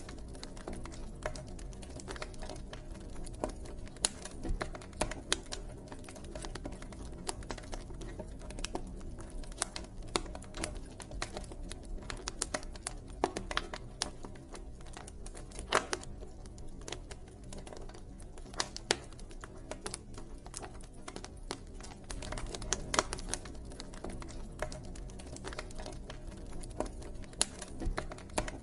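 Wood campfire crackling and popping: irregular sharp snaps scattered throughout, a few louder pops standing out, over the low steady rush of the burning fire.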